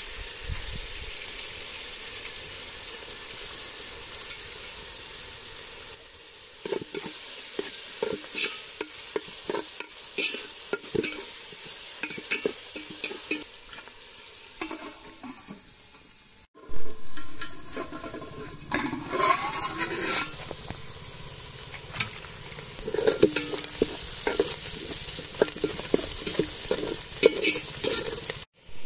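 Chopped onions and green chillies sizzling as they fry in oil in an aluminium pot, with a metal ladle scraping and knocking against the pot as they are stirred.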